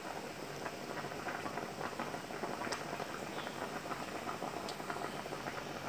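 Chicken in tomato broth at a rolling boil in a pot: steady bubbling with many small pops.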